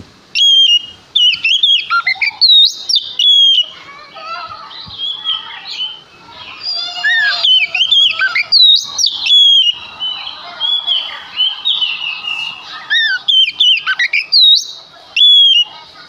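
Oriental magpie-robin in full, vigorous song: loud whistled phrases of sweeping, sliding notes, broken twice by quieter, scratchy passages before the loud phrases start again.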